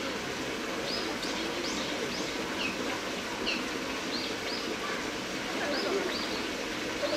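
Small birds calling with repeated short, high chirps that drop in pitch, over steady background noise.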